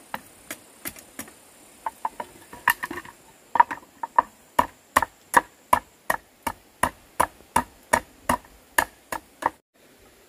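A series of sharp knocks or strikes, such as a tool hitting wood. They come irregularly at first, then settle into an even run of about three a second, and stop abruptly near the end.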